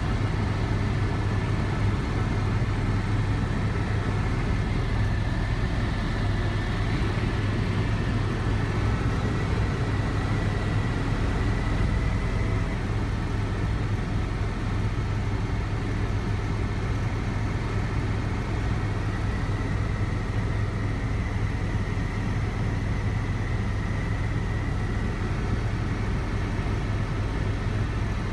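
Tour helicopter's rotor and engine noise heard from inside the cabin: a loud, steady drone with a strong low hum that holds unchanged throughout.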